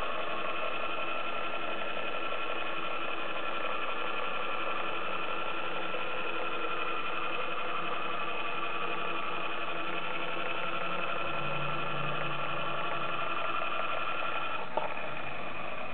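Steady whir of a small electric motor running evenly, with a few fixed whining tones over it. One short click comes near the end.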